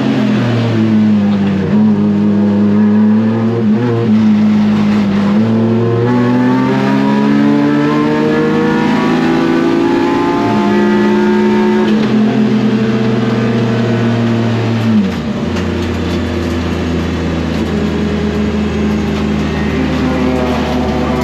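BMW S54 inline-six in an E36 race car running hard, its note climbing and falling again and again through gear changes and braking. About 15 seconds in the pitch drops sharply and settles into a low, steady hum.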